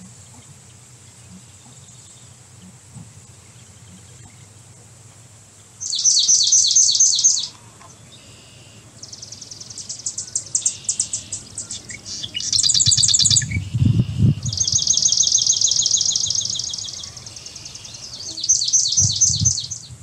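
Songbirds singing in bursts of fast, high trills, each a second or several seconds long, starting about six seconds in and coming again and again to the end. Two short low rumbles come about halfway and near the end.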